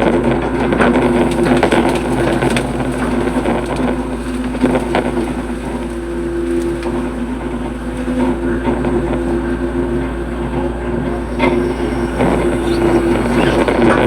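Hitachi hydraulic excavator running, its engine and hydraulics holding a steady drone, with scattered cracks and knocks from the digging.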